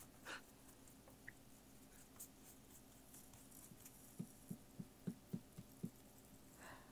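Near silence: room tone, with a short run of faint, brief soft sounds about four seconds in.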